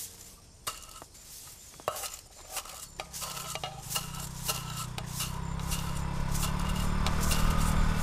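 Soft grass broom sweeping leaves and grit across asphalt in short, repeated scratchy strokes, about two or three a second. From about three seconds in, a motorbike engine rises underneath as it comes closer.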